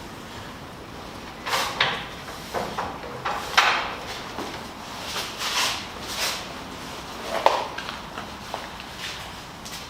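Irregular handling noises: a series of short scraping and rustling sounds, about half a dozen, as objects are moved and handled.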